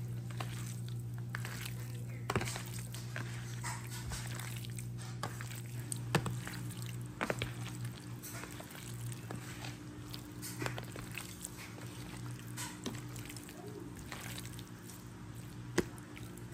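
A bare hand squishing and kneading seasoned raw pork pieces in a plastic container, with soft wet squelches and scattered light clicks against the container, over a steady low hum.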